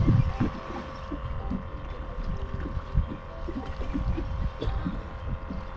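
Wind buffeting the microphone and water slapping against a small open boat's hull on choppy sea, with a steady hum underneath.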